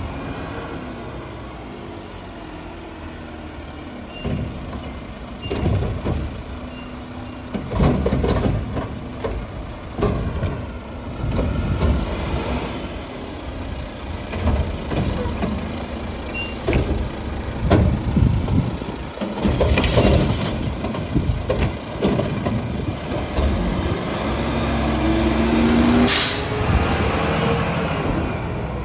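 Mack LR front-loader garbage truck at work: the diesel engine surges again and again with clanks and knocks as its Curotto Can arm picks up and empties a cart. Near the end the engine rises in pitch and there is a sharp air-brake hiss as the truck moves off.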